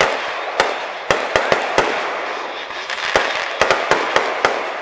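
Aerial fireworks going off: a quick string of sharp bangs and pops, about a dozen in under five seconds, bunched in two clusters, over a steady hiss.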